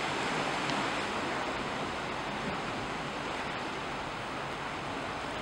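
Steady wash of sea water and surf.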